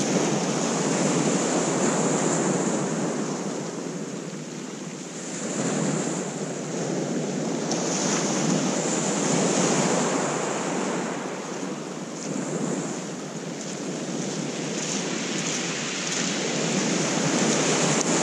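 Surf breaking and washing up a shingle beach, swelling and fading every few seconds, with wind on the microphone.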